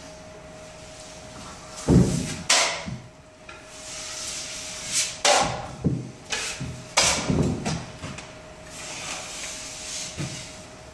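Steel taping knife scraping joint compound along drywall and across the edge of a metal mud pan: a run of sharp scrapes a second or more apart, loudest about two seconds in and again from five to seven seconds in, with a few dull knocks. A faint steady hum runs underneath.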